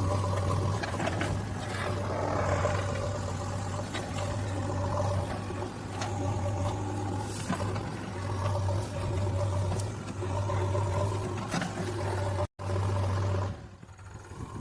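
Excavator's diesel engine running under working load: a steady low hum with a higher whine that rises and falls as the machine works. It breaks off for an instant about twelve and a half seconds in and runs quieter near the end.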